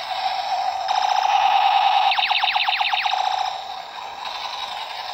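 Battery-powered Minecraft-style toy gun playing its electronic firing sound effect while the trigger is held: a buzzing electronic tone. It grows louder about a second in, and a rapid run of falling 'pew' sweeps comes in the middle.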